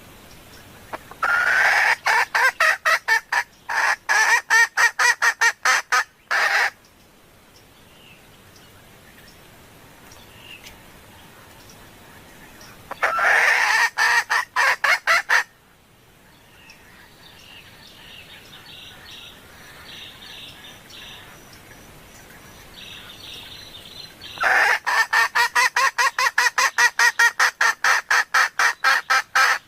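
Female red junglefowl calling in rapid runs of repeated clucks, about five to six a second, in three bouts with quieter gaps between. It is the hen's call to males, used as a lure call.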